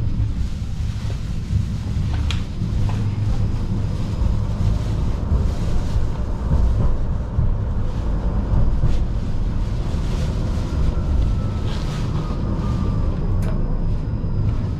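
Tram running along the track, heard from inside the car: a steady low rumble of wheels and running gear, with scattered sharp clicks and knocks and a faint whine that slowly falls in pitch through the second half.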